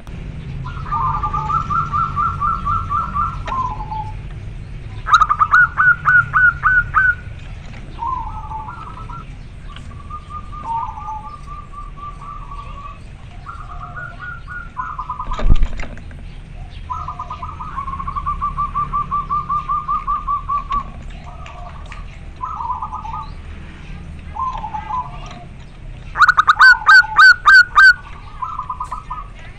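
Male zebra dove (perkutut) singing its cooing song: repeated phrases of rapid trilled notes, with loud bursts about five seconds in and again near the end. A single sharp thump comes about halfway through.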